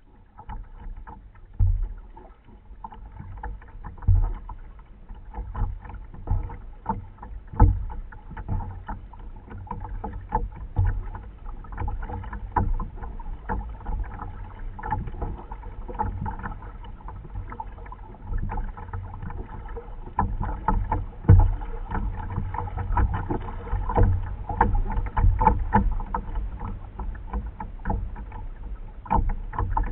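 Plastic kayak being paddled: irregular splashes and knocks of paddle and water against the hull every second or two, over a steady low rumble.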